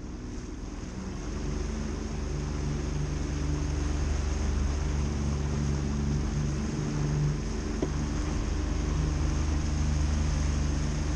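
Mercury 25 hp four-stroke outboard driving the aluminium boat under way, getting louder over the first couple of seconds as the boat gathers speed, then running steadily, with water rushing along the hull.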